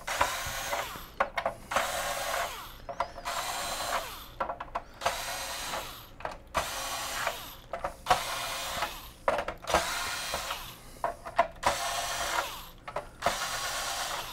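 Small Ryobi cordless electric screwdriver with a PH1 bit running in about ten short bursts of a second or so each, one per screw, backing out the screws of a metal LED-panel frame.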